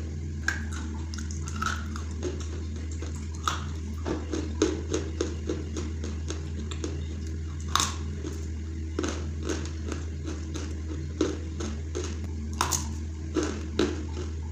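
Dry lumps of khadi clay being bitten and chewed: sharp, irregular crunches, the loudest bite about eight seconds in, over a steady low hum.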